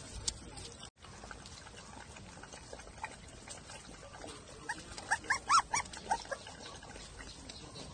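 Puppies whimpering: a quick run of about ten short, high squeaks starting a little before five seconds in.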